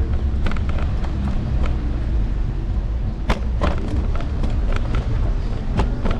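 Steady low rumble from an electric scooter in motion, picked up by a camera clamped to its handlebars, with sharp knocks and rattles scattered through it, the loudest about three seconds in.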